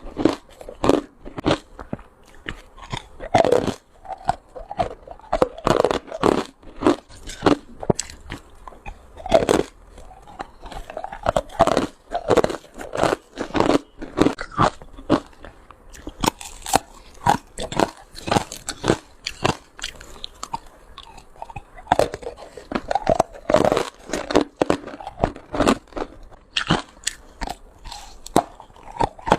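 A person biting and crunching ice close to the microphone: shaved, hard and crushed ice cracking between the teeth in a string of sharp, crisp crunches, a couple to a few each second.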